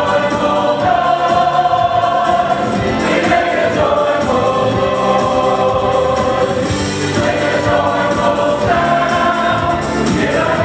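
Mixed church choir of men's and women's voices singing a gospel choir piece, in phrases of long held notes.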